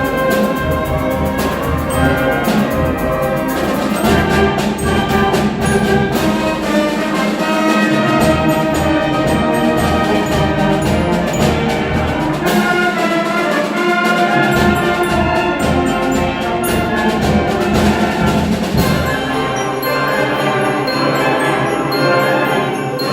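A high school ensemble playing a Christmas arrangement, with brass leading over a steady percussion beat.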